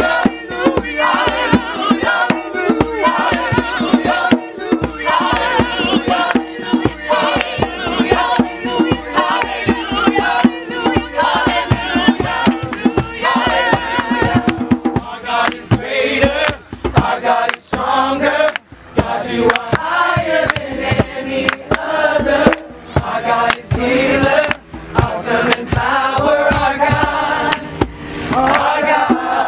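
A group of voices singing a worship song together, accompanied by a strummed acoustic guitar. Hand clapping joins in from about halfway through.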